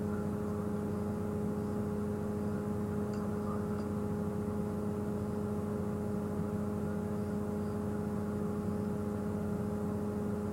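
Safari game-drive vehicle's engine idling, a steady even hum.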